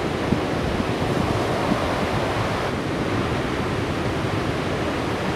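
Big ocean waves breaking: a steady wash of surf and whitewater, with wind noise on the microphone.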